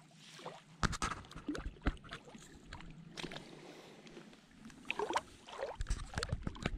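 Small splashes and sloshing of shallow lake water against rock as a hand dips a small fish into the water to release it, with scattered sharp clicks and drips, thickest in the second half.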